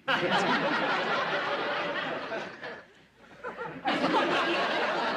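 Studio audience laughing: a burst of laughter that dies away after about three seconds, then a second wave of laughter about four seconds in.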